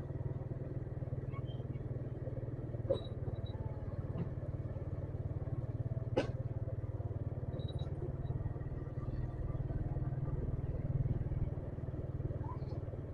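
Motorcycle running steadily on a ride through town streets, with two brief sharp clicks about three and six seconds in.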